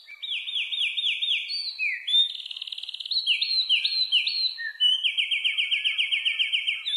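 A songbird singing: a series of quick rising whistled notes, a fast trill about two seconds in, more rising notes, then a long rapid trill of repeated rising notes from about five seconds in.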